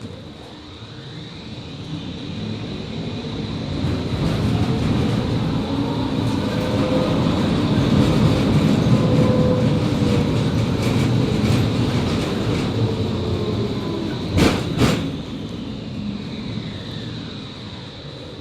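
Končar TMK 2200 low-floor tram heard from inside as it runs between stops. The traction motor whine rises in pitch as it pulls away, and the wheel-on-rail rumble builds to a peak. About fourteen seconds in the wheels knock twice over a rail joint, then the whine falls in pitch as the tram slows.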